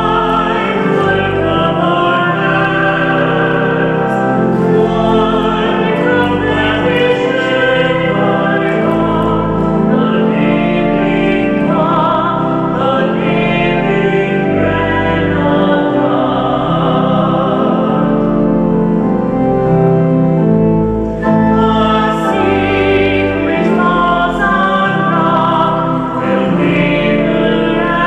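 Church music: a sung hymn over sustained instrumental accompaniment with long-held low notes, played during the offertory collection at Mass.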